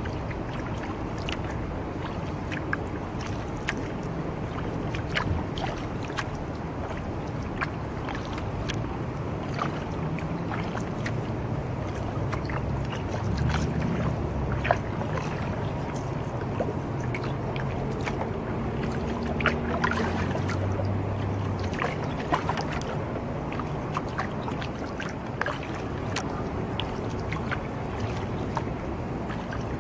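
Kayak paddling: water dripping, trickling and splashing off the paddle blades with each stroke, with small clicks along the hull. A low hum rises in from a third of the way in and fades again about two-thirds through.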